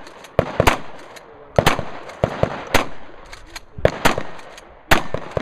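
Shotgun fired in a string of about seven loud shots, roughly one a second, with fainter sharp clicks between some of them.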